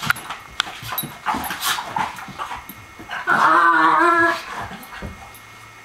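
Dogs play-fighting: short scuffling and snuffling noises, then about three seconds in a single loud, wavering, high-pitched dog whine lasting about a second. The rough noises are play, not a real fight.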